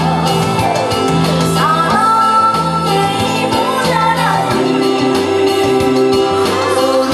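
A woman singing into a handheld microphone over backing music with a steady beat, holding long notes with vibrato.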